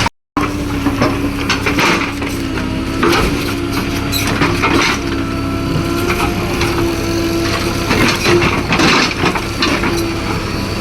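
Wood and roots cracking and splintering as a large tree is torn out by a digger, with many irregular sharp cracks over the machine's steady engine hum.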